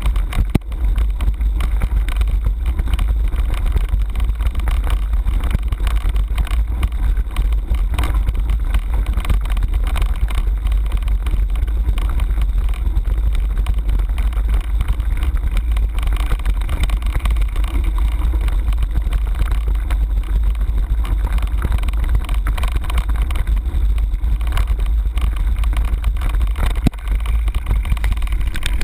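Mountain bike rolling over a stony dirt track, heard from a handlebar-mounted camera: a steady low rumble of wind buffeting and vibration, with constant small rattles.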